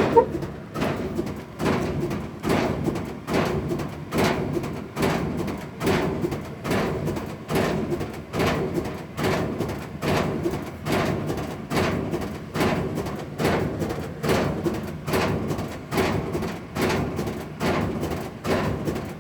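Old washing machine going nuts, thumping hard in a steady rhythm of about one and a half knocks a second.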